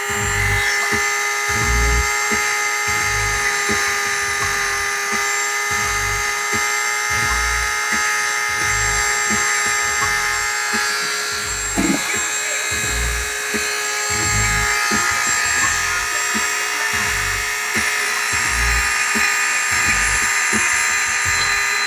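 Corded rotary tool running steadily with a high whine as it grinds and sharpens a hatchet's steel blade. A low thump recurs about every second and a half underneath.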